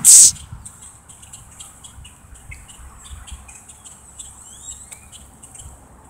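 A flock of grackles calling over and over in short, sharp chips, with a couple of rising whistles near the middle. It is the agitated calling of birds worked up at a person in their territory.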